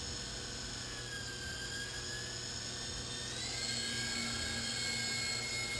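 Small electric motors and rotor of an iPhone-controlled toy helicopter whirring with a steady high whine, the pitch stepping up about three and a half seconds in.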